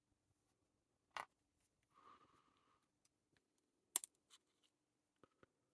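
Small metal lock parts being handled: the discs and spacers of a disc detainer padlock core, giving a sharp click about a second in, a short scrape, another sharp click near the middle and a few light ticks.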